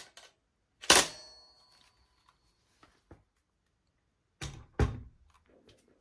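Sharp handling clacks from a Hatsan Blitz PCP air rifle. One loud clack with a short metallic ring comes about a second in, then two more knocks follow close together near the end.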